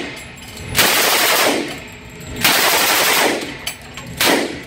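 Full-auto Thompson M1A1 submachine gun (.45 ACP) firing three bursts in a reverberant indoor range: about a second in, about two and a half seconds in, and a short one near the end, each trailing off in echo.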